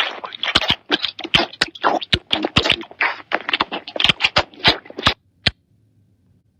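Cartoon sound effect: a fast, dense jumble of sharp knocks, clatters and short scraping noises that stops abruptly about five and a half seconds in.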